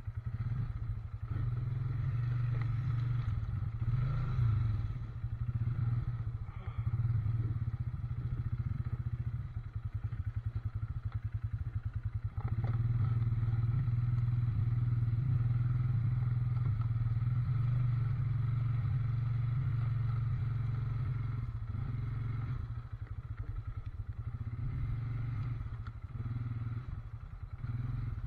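ATV (quad bike) engine running as it rides along a wet, muddy trail, the engine note easing off and picking up again several times.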